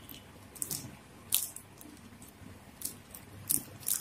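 Small packaging packet crinkling as fingers work at it, a handful of short, faint crackles at irregular moments.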